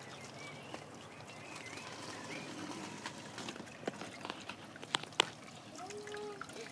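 Water from a garden hose trickling into a shallow concrete channel, with faint bird chirps and a few sharp clicks about four and five seconds in.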